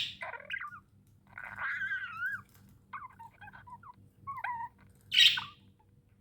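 Pet budgerigars chirping and warbling in a string of short, pitch-bending calls, with one loud harsh squawk about five seconds in.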